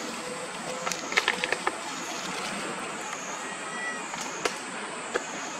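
Macaques moving over dry leaf litter, a cluster of leaf crackles about a second in and a few single clicks later, over a continuous high insect drone that wavers slowly in pitch.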